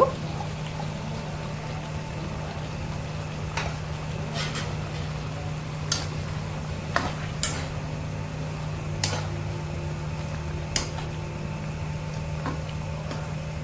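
A metal ladle clicking and scraping against an iron kadai as chicken curry is turned, about eight sharp clicks spread through, over a steady low hum.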